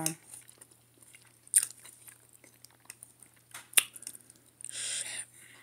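A person chewing a mouthful of mushroom chicken and rice close to the microphone, with soft mouth clicks and two sharp louder clicks. There is a short breathy sound near the end.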